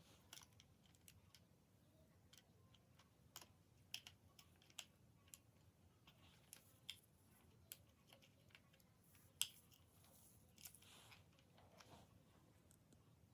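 Faint, irregular small clicks and taps, like plastic toy parts being handled and fitted together, the loudest about nine seconds in.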